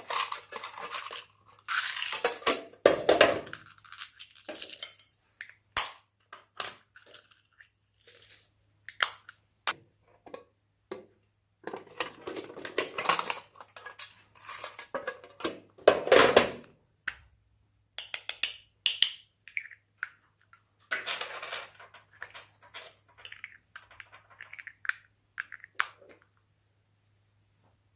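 Slime being squished and kneaded by hand, giving irregular bursts of sticky clicks, pops and crackles that stop a couple of seconds before the end.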